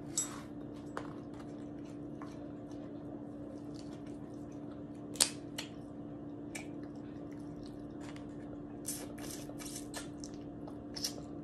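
Eating sounds: scattered short wet clicks and lip smacks while fried seafood is chewed and picked apart by hand. One click about five seconds in stands out. A steady low hum runs underneath.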